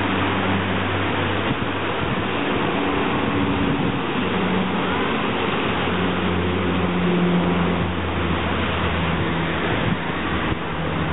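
A steady rushing noise with a low engine drone under it, its pitch shifting slightly.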